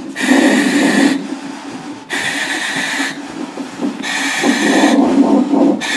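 A woman in labour breathing hard through a nitrous-oxide (gas and air) demand-valve mouthpiece. There are three loud hissing breaths, each about a second long, the third one longer.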